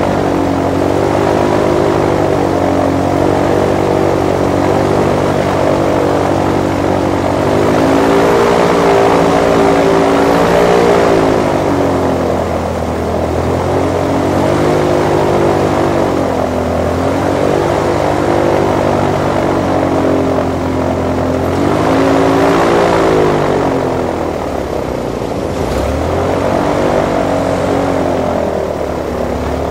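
Airboat's engine and propeller running loud under way, the engine speed rising and falling several times as the throttle is opened and eased.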